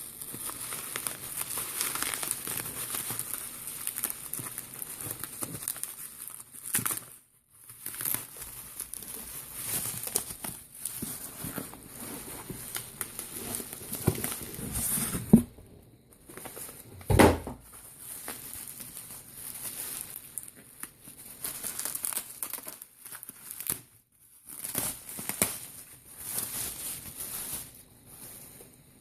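Packaging being crinkled and torn open by hand, on and off, with short pauses. A single dull thump a little past halfway.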